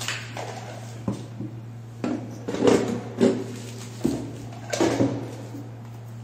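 White plastic toilet cistern parts knocked and rattled against each other as they are handled, in several short clattering bursts over a steady low hum.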